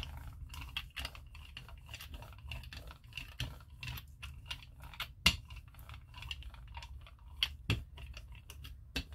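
Rubber brayer rolled back and forth through tacky acrylic paint on a gel printing plate, making irregular sticky clicks and crackles.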